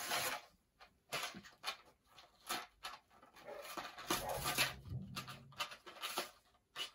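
Paper instruction sheet and plastic packaging rustling and crinkling in irregular bursts as a model railroad turnout is unpacked and handled.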